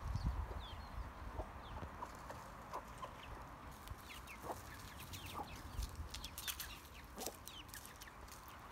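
Chickens clucking in short separate calls, with a few brief high chirps. From about four seconds in, a run of dry crackling clicks joins them.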